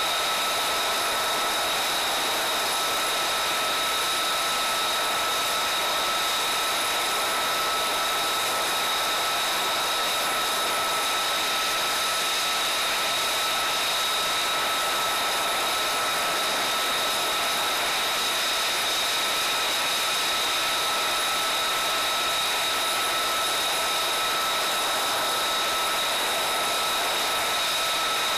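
F-35A's Pratt & Whitney F135 turbofan running at idle: a steady, unchanging high whine over an even rush of air.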